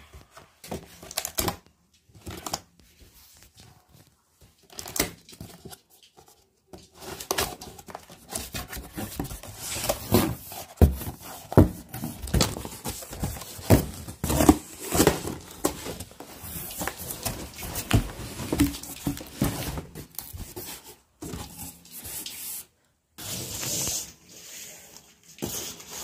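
Cardboard box being opened by hand: irregular tearing, scraping and rustling of cardboard flaps and packing, busiest from about seven seconds in until about twenty-one seconds.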